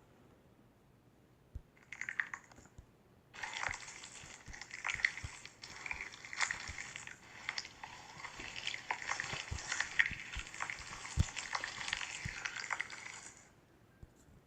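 Slime being squished and stretched by hand: wet crackling and popping. A brief squish comes about two seconds in, then a long stretch of dense clicking and popping that stops shortly before the end.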